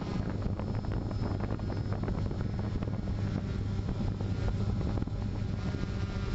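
A multirotor drone's propellers and motors running at a steady hum, with wind buffeting the camera's microphone.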